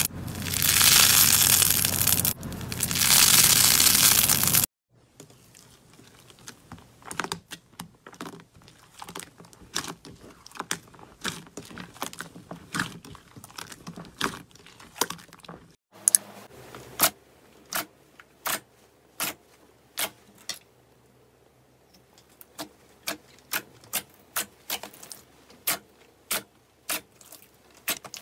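Slime being worked by hand. First a porous, crunchy pink slime block is squeezed, giving loud crackling crunches for about five seconds. Then soft slime stretched and poked in a glass bowl makes quiet little clicks and pops, and about halfway through glossy clear pink slime is pressed flat, popping its trapped air bubbles in a long string of sharp pops.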